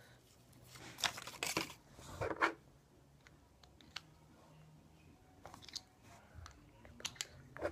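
Small plastic parts of a disposable lighter being handled and worked apart: a few short scraping, crinkling noises in the first couple of seconds, then scattered small clicks.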